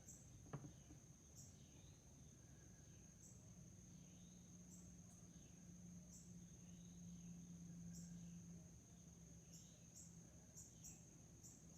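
Near silence under a faint, steady high-pitched whine, with a faint low hum in the middle and a small tick about half a second in.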